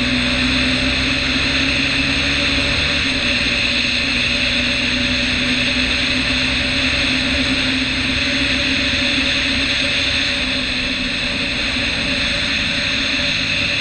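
KTM Duke 390's single-cylinder engine running at a steady cruising speed, with wind rushing over the microphone.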